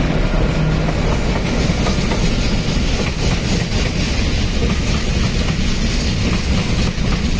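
Container freight train of loaded flat wagons running past close by behind an Indian Railways WAG-7 electric locomotive: a steady, loud rumble of steel wheels on the rails with clickety-clack over the rail joints. A low steady hum fades out about a second in.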